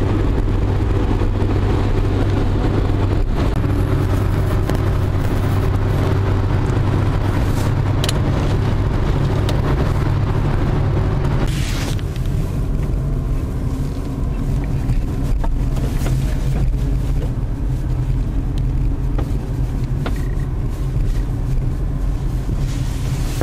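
Car engine running with road and cabin noise, heard from inside the car as it drives, the hiss easing off about halfway through. A few light clicks.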